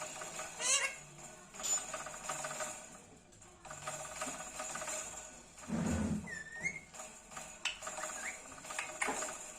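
Pet parrot making short squeaky chirps and clicks, with a short wavering whistled note about six seconds in.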